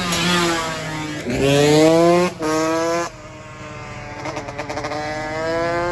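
Small scooter engines revving hard. The pitch climbs steeply and cuts off twice in the first three seconds, then a quieter engine climbs slowly in pitch.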